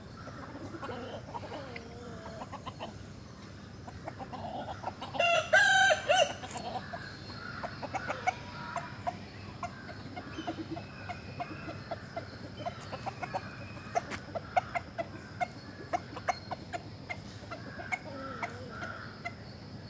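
Roosters and hens: a rooster crows once, loudly, about five seconds in, and short clucking notes repeat through the rest.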